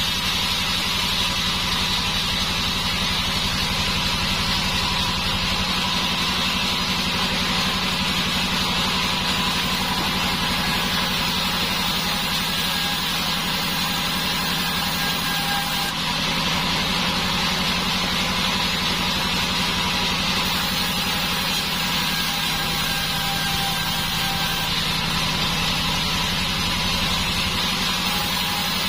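Band sawmill running, a steady mechanical drone that holds at the same level throughout.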